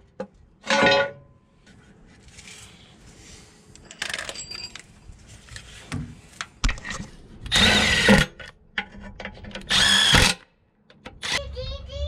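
A power tool running in short bursts: briefly about a second in, then twice for about half a second each later on, with small metal clinks between. This is a fastener driver running bolts in as the transmission bell housing is put back together.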